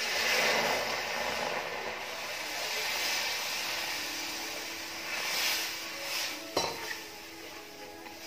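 Water poured from a steel bowl into roasted besan (gram flour) in a steel kadhai while a steel spatula stirs it, an even splashing rush that is loudest at the start. A sharp knock comes about six and a half seconds in, and after it the sound is quieter.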